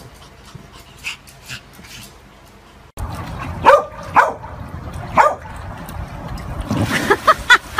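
Large dogs barking, starting about three seconds in: a few single loud barks, then a quicker run of higher barks and whines near the end.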